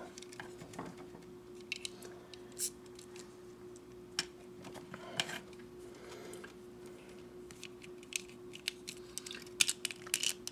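Small plastic model-kit parts being handled and fitted together, giving scattered light clicks that come thicker near the end, over a faint steady hum.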